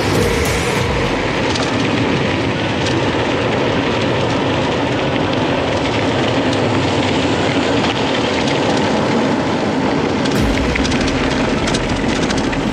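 Steady rushing wind on the microphone with a mountain bike clattering over rough trail, the rattling and low rumble getting heavier about ten seconds in.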